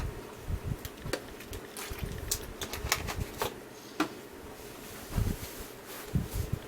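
HP 6730b laptop running as it boots: a steady hum with irregular sharp clicks and light knocks on top.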